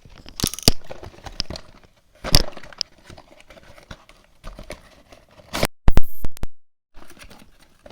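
Hands opening and handling a toy's box and plastic packaging: scattered clicks, taps and rustles, with the loudest knocks about two and a half seconds in and near six seconds.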